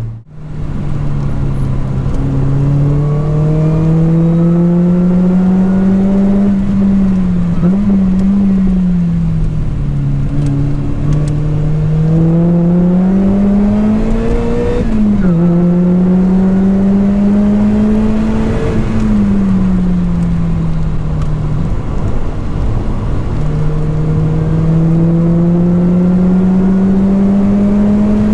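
Lotus Elise 220 Sport's supercharged four-cylinder engine through a 2bular H1 exhaust silencer, driven hard around a track. The note climbs and falls repeatedly with the gears, with quick pitch changes at each shift, and briefly drops out a little past two-thirds through.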